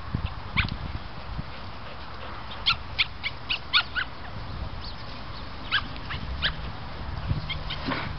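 A dog whining and yipping in short high-pitched cries, a quick cluster of about six between three and four seconds in and a few more after.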